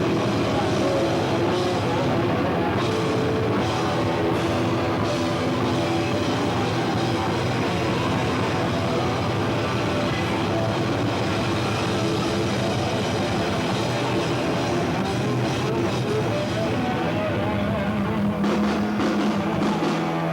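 Hardcore punk band playing live: loud distorted electric guitars, bass and drum kit.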